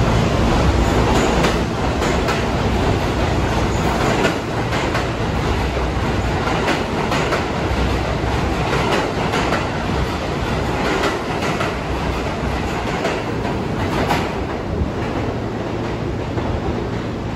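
New York City subway train running on the rails, with the clickety-clack of the wheels over rail joints over a steady rumble.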